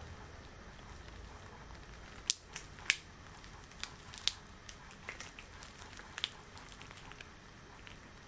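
Extra long latex gloves being handled: a scattered series of sharp snaps and crackles of the rubber, about six of them from roughly two to six seconds in, over a steady hiss.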